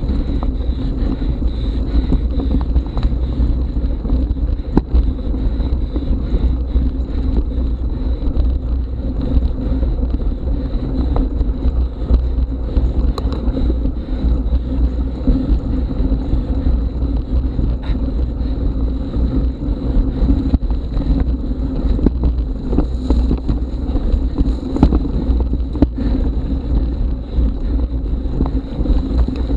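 Mountain bike rolling over a rough dirt forest trail: a steady low wind rumble on the action camera's microphone, with frequent small knocks and rattles from the bike over the bumps.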